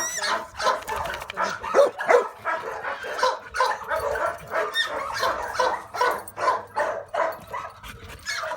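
Puppy barking over and over, about two short barks a second, excited and attention-seeking.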